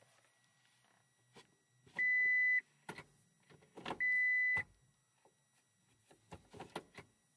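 Toyota Corolla instrument-cluster warning chime: two steady beeps about two seconds apart, each just over half a second long, warning that the selector must be in P to start the engine. Soft clicks of the cabin controls come between and after them.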